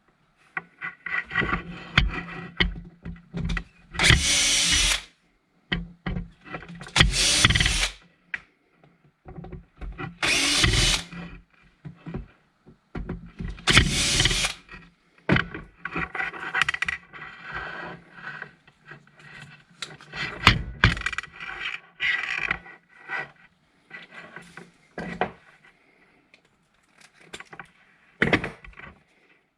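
Power drill run in short bursts of about a second, several times, backing screws out of a submersible water pump's casing, with clattering of parts and tools handled between the bursts.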